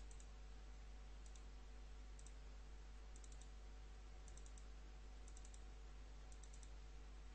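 Faint computer mouse clicks in quick clusters of two to four, about once a second, as folders are opened in a file dialog, over a steady low electrical hum.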